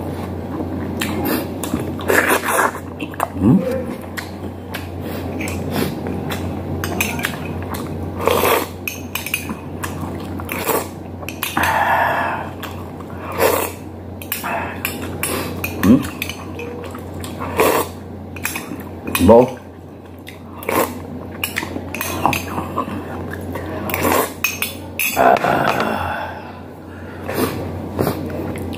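Close-up eating sounds: a metal spoon clinking against a small ceramic soup bowl and plate, with chewing between the clicks.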